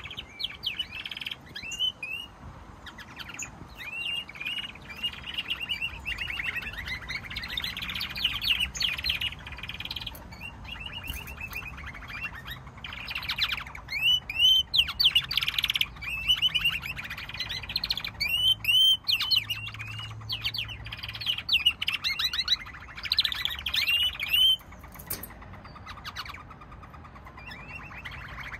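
Domestic canaries singing: a continuous run of rapid trills and chirps, with the loudest phrases about halfway through.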